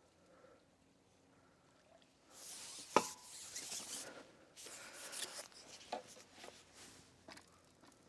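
Handling of a long carbon fishing pole as it is pulled back in: rustling and scraping after a quiet start, with one sharp click about three seconds in and a few lighter knocks after it.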